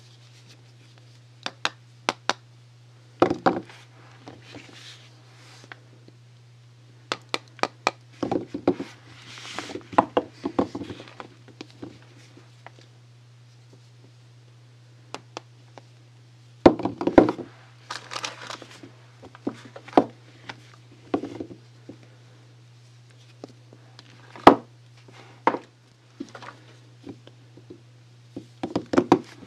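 Soap bars and their packaging handled up close: scattered taps and knocks as pieces are set down, with short stretches of wrapper crinkling, over a steady low hum.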